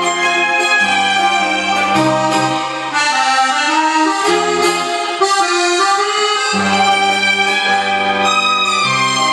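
Karaoke backing track of an enka song playing an instrumental interlude between sung verses: a sustained melody over a stepping bass line, with no voice.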